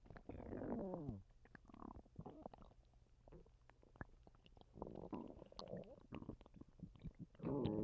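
Human stomach gurgling and rumbling in an irregular run of bubbly gurgles and short pops. About a second in, one gurgle slides down in pitch, and a louder gurgle comes near the end.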